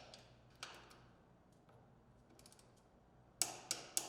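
Torque wrench clicking as the snowmobile's upper control arm nuts are tightened to specification: a single sharp click about half a second in, a few faint ticks, then a quick run of clicks near the end.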